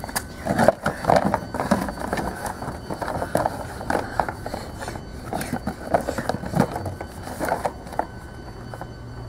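A cardboard shoebox wrapped in plastic being handled and opened by hand: a string of irregular crackles and rustles.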